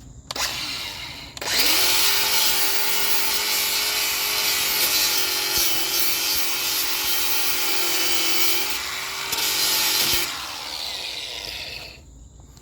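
Angle grinder with an abrasive pad spinning up, then grinding paint off a trailer tongue down to bare metal for about eight seconds, its motor tone holding steady under load. Near the end it is lifted off and winds down.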